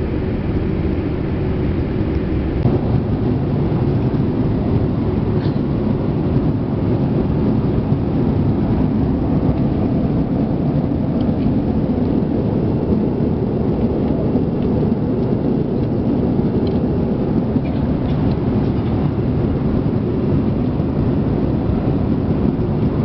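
Steady low roar of a Boeing 787-8 airliner's jet engines and airflow heard from inside the cabin, growing slightly louder about two seconds in.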